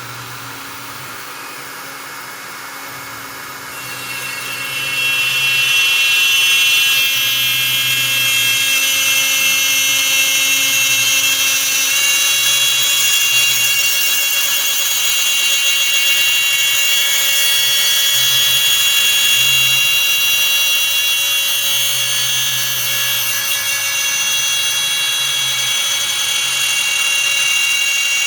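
CNC router spindle running with a steady high whine. About four seconds in it grows much louder and brighter as the bit ramps down into the guitar top and begins milling the rosette channel.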